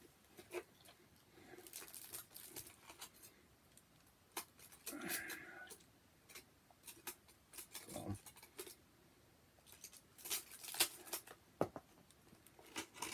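Faint scattered rustles, scrapes and clicks of a hand and fork picking through kebab meat and naan in a foam takeaway box, with a short muffled sound about five seconds in.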